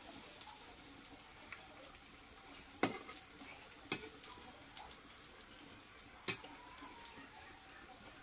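Battered leaf fritters frying in oil in a steel kadai, a faint sizzle with scattered small crackles. A metal spatula clinks sharply against the pan three times through the middle.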